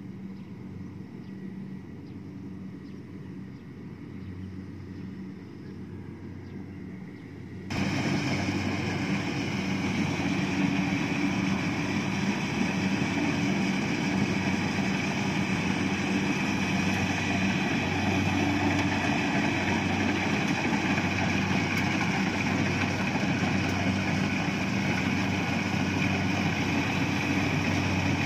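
Rice combine harvester's engine running steadily while it harvests rice. It is faint at first, then suddenly much louder and closer about eight seconds in, with a broad rushing noise over the engine hum.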